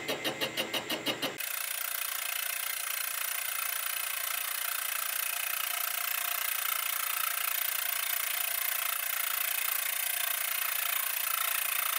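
Knee mill spindle turning a boring head and bar that is taking a light boring cut in a steel journal. For the first second or so it pulses about six times a second, then it changes abruptly to a steady, even hiss with a faint hum.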